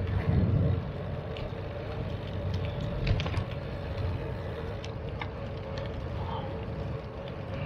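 Wind buffeting the microphone with rolling noise from a bicycle ride, under a steady hum and scattered light clicks and rattles.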